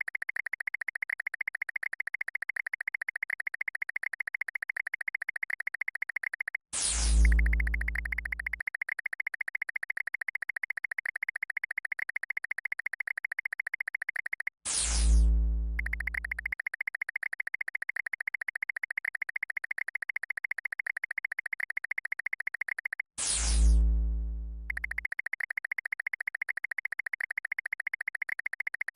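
Synthesized electronic sound effects: a steady, rapidly pulsing buzz, broken three times, about eight seconds apart, by a loud falling zap that ends in a deep boom.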